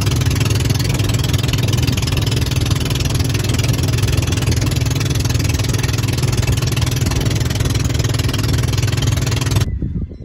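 Engine running steadily at an even speed, loud and close, cutting off abruptly near the end.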